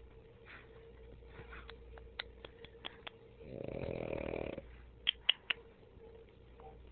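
Pug snoring while awake: one loud, rough snoring breath about three and a half seconds in, lasting about a second, with fainter breathing around it. Several short clicks come around two to three seconds in, and three sharp, loud ones about five seconds in.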